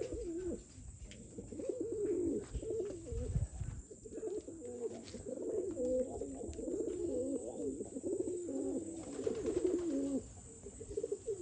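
Birds calling, with low, repeated dove-like cooing.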